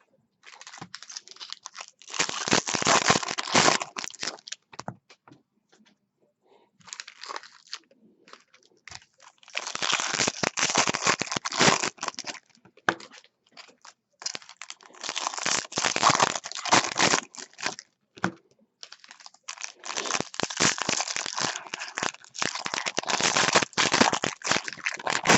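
Foil wrappers of Bowman Draft jumbo baseball card packs being torn open and crinkled, in several bursts of crackling separated by short pauses.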